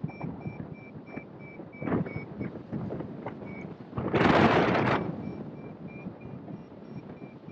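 Airflow buffeting a hang glider's camera microphone in flight, in uneven gusts, with one much louder rush about four seconds in that lasts about a second. A variometer beeps faintly at about four beeps a second, the tone that signals the glider is climbing in lift.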